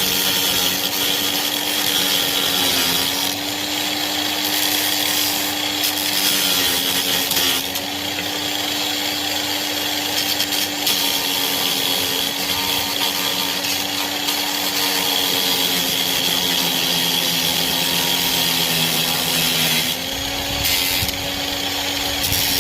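Ryobi angle grinder running steadily while grinding away wood trim along a cope cut for an inside corner. The motor's pitch dips briefly a few times as the disc is pressed into the wood.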